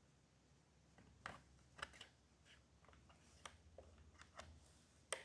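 Faint, scattered clicks of an HP 250 G7 laptop's touchpad buttons being pressed, with a quicker run of clicks near the end.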